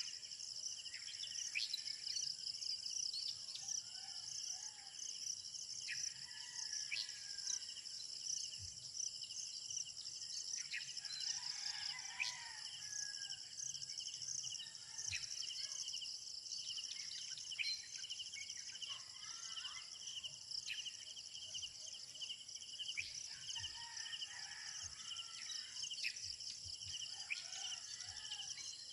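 Countryside insects, crickets or similar, chirring steadily in several high-pitched layers, with scattered short bird calls throughout.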